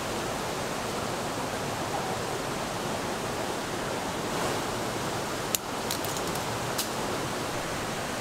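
Small waterfall and mountain stream rushing steadily over rocks, with a few light clicks about five and a half to seven seconds in.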